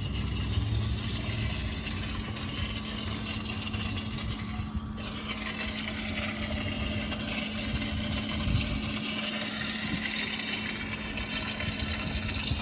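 An engine running steadily, a constant hum under an even rushing noise.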